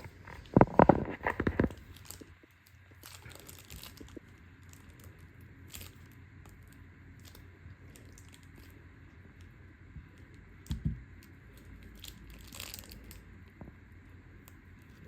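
Plastic slime pouch crinkling and crackling in the hands as it is squeezed to push the slime out, with a cluster of louder knocks and crinkles in the first two seconds and quieter scattered crinkles after.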